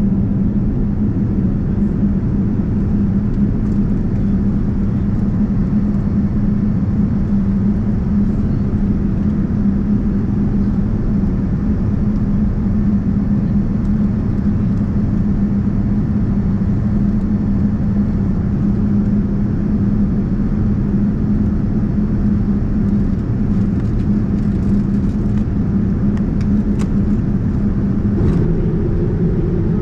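Steady cabin rumble of a Boeing 787-9 airliner with its engines running, carrying a constant low hum; about two seconds before the end a second, higher hum joins in.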